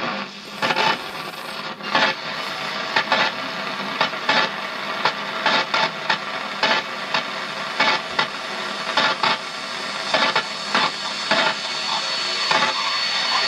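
Medium-wave radio hiss between stations, broken by short scratchy 'chuh, chuh' bursts, one to a few a second: interference from the stepper motor as it is pulsed to sweep the tuning. A thin high whistle comes in near the end.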